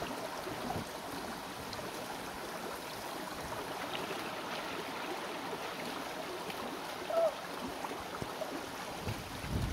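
Shallow rocky stream running steadily over stones, with a brief louder gurgle of water about seven seconds in.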